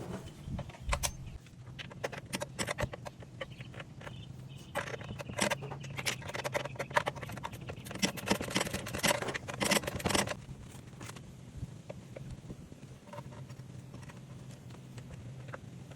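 Metal parts and hand tools clinking and clattering in irregular clicks and knocks during go-kart assembly work, busiest in the middle stretch, over a steady low hum.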